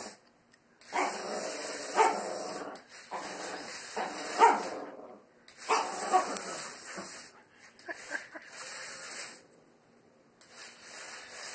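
Papillon barking at a remote-control toy skunk in several bursts of a second or two, with a steady hiss along with each burst.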